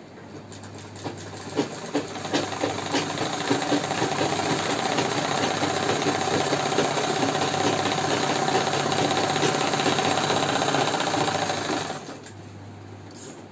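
Sewing machine running a straight line of stitching through cloth. It starts with a few slow single stitches about a second in, picks up to a steady fast run, and stops about twelve seconds in.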